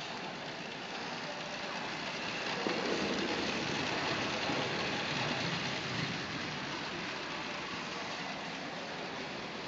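Track bicycles running on the wooden boards of a velodrome: a steady tyre hum and rumble that swells as three riders pass close, about three seconds in, and eases off again.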